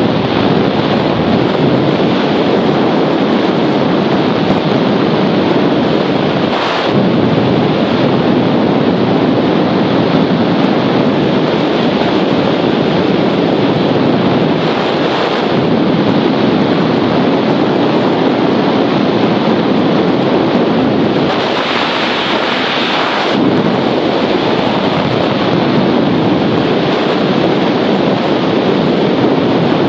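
Loud, steady rush of wind buffeting the microphone of a camera mounted on a hang glider in flight. It swells briefly about seven seconds in, and again for about two seconds a little past twenty seconds in.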